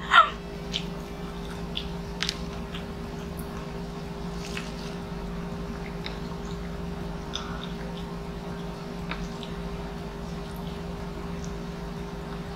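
Scattered soft clicks and small wet squishes as black-bean noodles and lettuce leaves are handled with wooden chopsticks and fingers, over a steady low hum.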